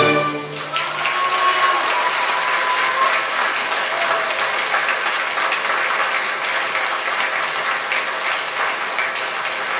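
Audience applauding: many hands clapping in a steady, dense patter that swells up within the first second, just after the orchestra's final chord.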